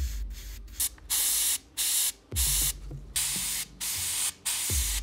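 Airbrush spraying in a series of short hissing bursts, each about half a second long and cut off sharply as the trigger is released, with brief gaps between them.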